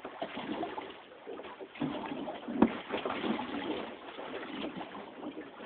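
Water sloshing against a small boat's hull in an uneven, noisy wash, with one sharp knock about two and a half seconds in.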